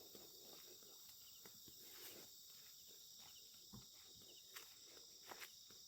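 Faint night chorus of crickets and other insects: steady high-pitched trilling, with a few soft knocks in the second half.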